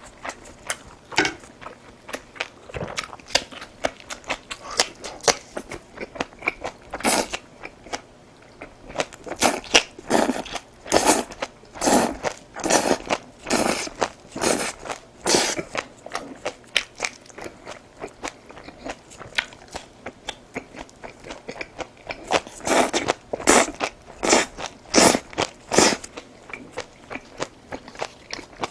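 Close-up chewing of food, with repeated sharp crunching bites. The crunches come thickest in two runs, about a third of the way in and again near the end, with softer chewing between.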